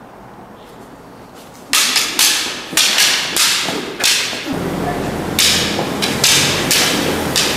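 Toy lightsaber blades striking each other in a sword fight: about a dozen sharp clacks, a few each second, starting about two seconds in and echoing off the concrete of a parking garage.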